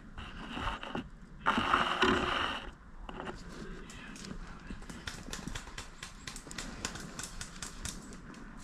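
Footsteps crunching through dry leaves and twigs: a run of small, irregular crunches. About a second and a half in there is a louder burst of rustling noise lasting about a second.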